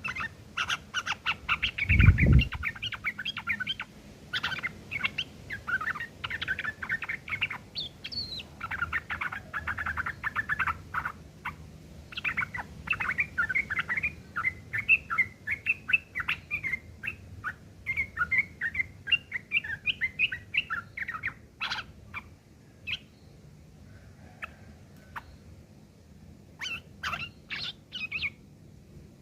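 Yellow-vented bulbul (trucukan) singing a fast, harsh chattering song laced with long-tailed shrike (cendet) phrases, unbroken for about twenty seconds, then dropping to scattered short notes. A low thump about two seconds in.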